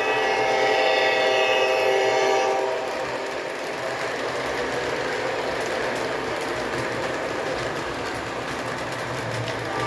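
O gauge model diesel locomotive's horn sounding for about two and a half seconds as a steady chord, then the steady running rumble of the train.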